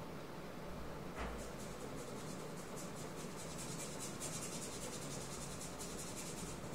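Pastel scribbled back and forth on paper: a dry, rapid scratching repeated several times a second, after a soft knock about a second in.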